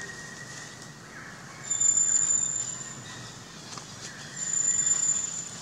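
Two long, steady, very high whistling calls from an unseen animal, each a little over a second long, the second coming about a second and a half after the first ends. Under them is a faint, even outdoor hiss.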